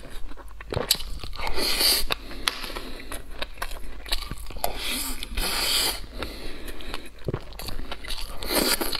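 Close-miked eating of braised pork belly and rice: wet chewing and mouth noises in several bursts, with small clicks of a metal spoon and chopsticks against the tray.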